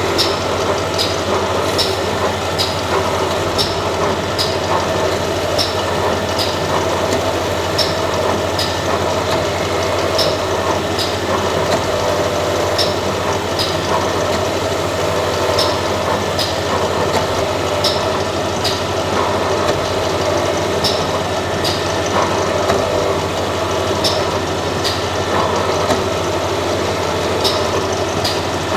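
Machine running steadily with a constant hum, cut by sharp short clicks, each with a brief high ring, about once or twice a second.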